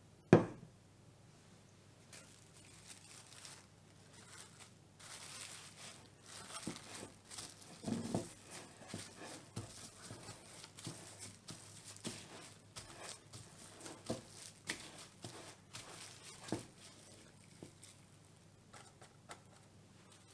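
Plastic cling film crinkling and rustling as it is stretched over a glass bowl of dough and pressed around the rim, with scattered small clicks and a few soft knocks. A single sharp knock about half a second in is the loudest sound.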